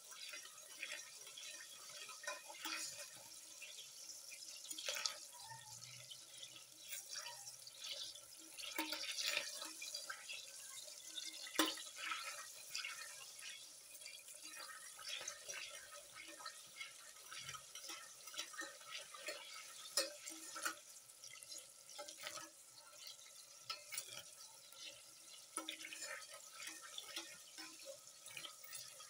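Coconut cream frying down in a steel saucepan, sizzling and crackling with a fast, irregular patter of small pops as its last water boils off; the crackling dies away once the oil is ready. A spoon stirs in the pot, with a few sharper clicks against the steel.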